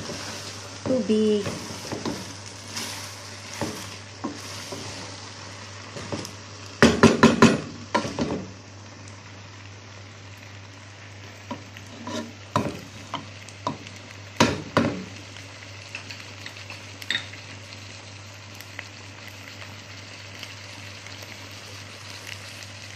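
Rice and chicken pieces sizzling in a pot as a wooden spatula stirs and knocks through them: the rice frying in the oil before the water goes in. A loud run of spatula knocks comes about seven seconds in, and a few more follow between about twelve and fifteen seconds, over a steady low hum.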